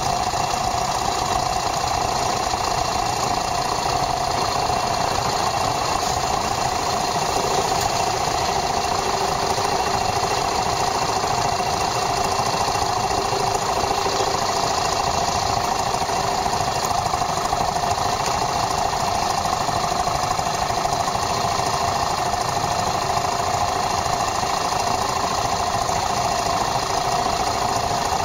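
Yamaha SRX400's single-cylinder four-stroke engine running at a steady pace, its pitch and loudness unchanging.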